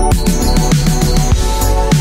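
Electronic background music with a steady drum beat and bass.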